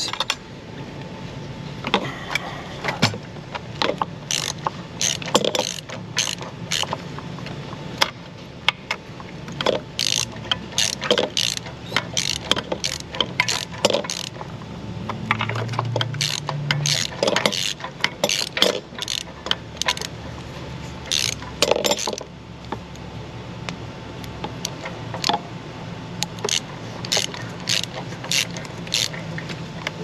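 Hand socket ratchet clicking in short, irregular runs as a tight, threaded sensor is slowly backed out of the engine with an extension.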